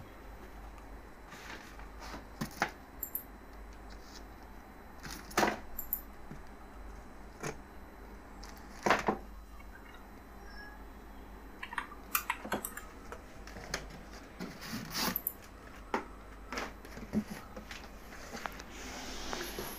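Power cords and their plugs being handled and lifted out of a cardboard box with styrofoam packing: irregular clicks, knocks and light clinks, with a rustle of packing near the end.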